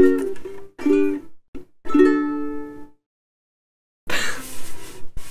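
Soprano travel ukulele with a polycarbonate body and fluorocarbon strings, strummed in a few hesitant chords while the player searches for the final chord of a song; the last chord rings out and fades about three seconds in. Near the end, a short burst of scratchy noise.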